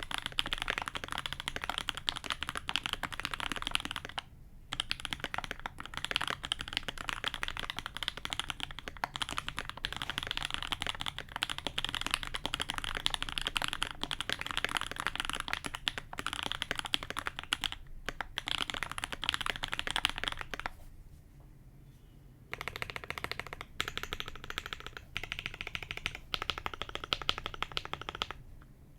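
Fast, continuous typing on an SG81M custom mechanical keyboard with lubed H1 switches on an FR4 plate, foam-dampened, with GMK keycaps. The key presses run as a dense stream of clicks, with a brief pause about four seconds in and a longer pause of about two seconds about two-thirds of the way through.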